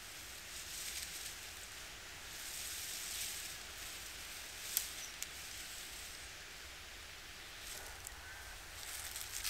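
Rustling of cut leafy conifer branches being handled and laid onto a debris shelter, coming and going in patches, with one sharp crack about five seconds in.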